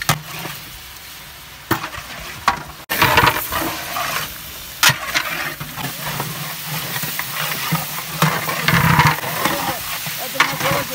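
Mutton pieces sizzling as they fry in a large metal cooking pot, stirred with a long-handled metal spatula that scrapes and knocks against the pot now and then. The sizzling grows much louder about three seconds in.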